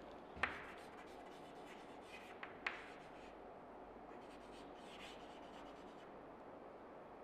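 Chalk writing on a chalkboard: faint scratchy strokes, with a sharp tap of the chalk on the board about half a second in and another sharp tick a little before the middle.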